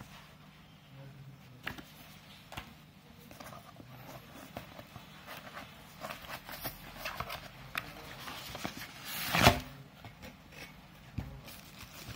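Hands handling packaging in a cardboard box: a paper manual and a white polyethylene foam wrapping sheet rustling and crinkling, with scattered light taps and one loud, longer rustle about nine seconds in.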